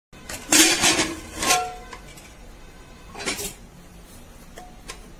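Metal cookware clattering: a handful of short clanks and scrapes of a metal utensil and lid against an aluminium pressure cooker, some ringing briefly, the loudest about half a second to a second in and again at about one and a half and three seconds.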